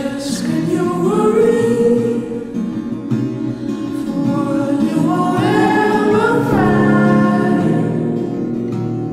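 Background music: a song with sung vocals holding long, sliding notes over guitar accompaniment.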